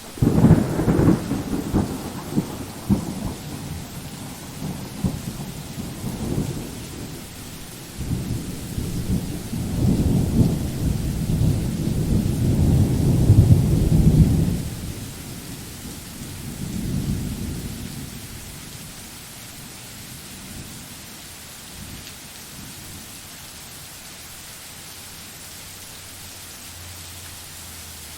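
Thunder over steady rain: a sudden close clap at the start that rolls on in low rumbles, a second long rumble that builds from about eight seconds in to its loudest near fourteen seconds, and a weaker roll a few seconds later, after which only the rain hiss remains.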